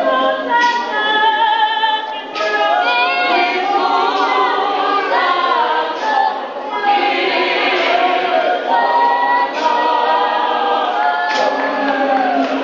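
Choir of many voices singing a cappella, holding long notes together without instruments.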